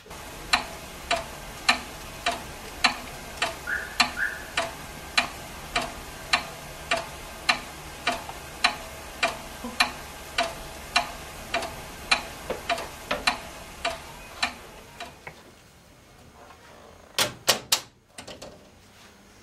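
A clock ticking steadily, a little under two ticks a second, over a low hum, stopping about 15 seconds in. Near the end comes a quick run of sharp, louder clicks as a door's lock is worked.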